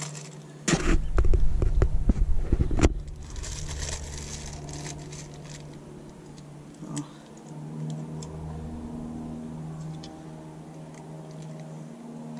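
Loud rumbling thumps and knocks for about two seconds, starting just under a second in: the camera and its microphone being handled as it is moved. Then faint clicks and rustles of a small plastic license plate light and its packaging being handled, over a low steady hum.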